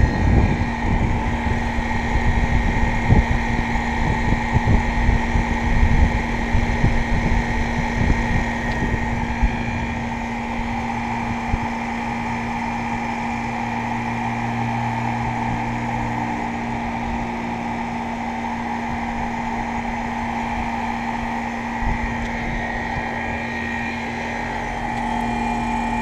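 Outdoor heat pump units running in heat mode: a steady compressor hum with a constant fan whir. For the first ten seconds or so, air buffets the microphone with an uneven low rumble, which then settles.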